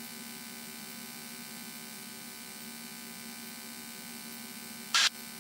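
Steady buzzing drone of a Cessna 172N in cruise, heard through the cockpit intercom. A short burst of radio squelch noise breaks in near the end.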